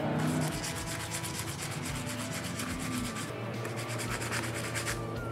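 Sandpaper rubbed by hand in quick back-and-forth strokes over the painted steel fork legs of a 1975 Yamaha Moto-Bike BMX, a rapid scratchy rasp as the old yellow paint is sanded off.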